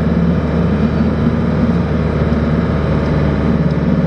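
Campervan engine running loudly under way, heard from inside the cab, with a steady drone and a fast pulsing exhaust note; the exhaust is broken and held together with steel wire and tape.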